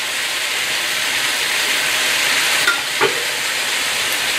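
Beef and mixed vegetables in spicy soybean paste sizzling steadily in a hot wok as they fry down before the stock goes in, with a brief knock about three seconds in.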